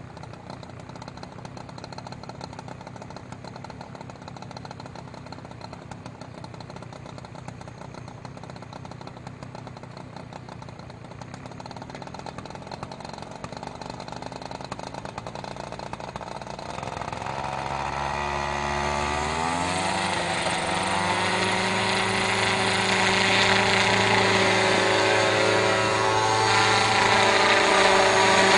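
A sprayer's motor running low and steady, then speeding up with a rising pitch a little past halfway and holding a louder, higher steady run.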